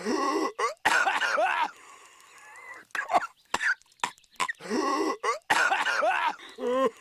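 Patrick Star, the cartoon starfish, in a coughing fit: short sharp hacks between longer, harsh rasping coughs, with a wobbling voiced gasp near the end.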